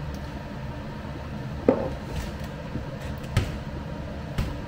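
Steady low kitchen hum broken by three sharp knocks, the loudest about a second and a half in and the others near the middle and near the end.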